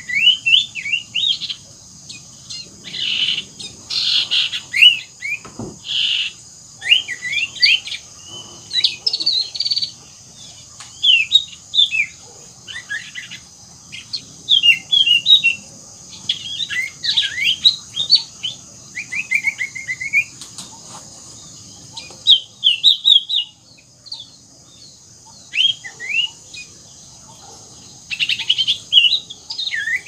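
Common iora (cipoh) singing actively, close by: bursts of quick, high whistled and chirping phrases that sweep up and down, with short pauses between them. A steady high hiss runs underneath.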